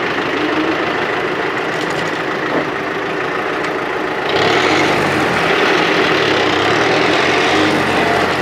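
Mahindra Arjun 605 DI 57 HP tractor's diesel engine running steadily, then getting louder about four seconds in and holding there.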